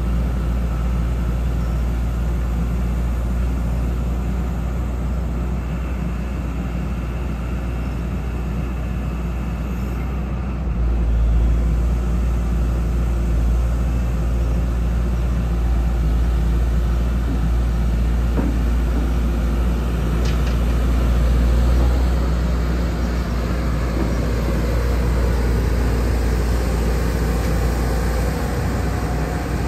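2009 Hyundai R170W-7A wheeled excavator's diesel engine running under hydraulic load as the boom, arm and bucket are worked and the upper structure slews, a steady low drone. It grows louder about a third of the way in and eases off near the end.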